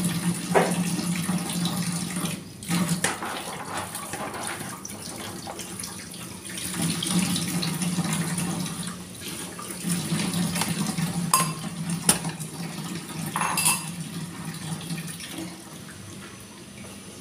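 Tap water running into a sink as string beans are rinsed in a plastic colander, the flow swelling and easing in spells. A few sharp clatters of the colander and dishes come in the second half.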